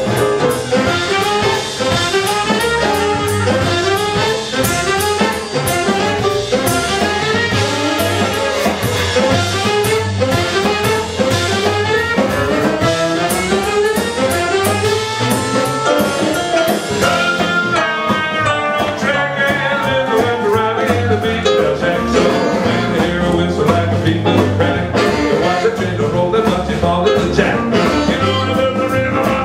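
Live western swing band playing an up-tempo boogie, with horns and a drum kit.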